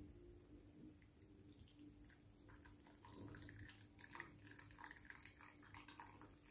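Faint trickling and small splashes of just-boiled water poured from a stainless steel electric kettle into a glass bowl, becoming more noticeable about three seconds in.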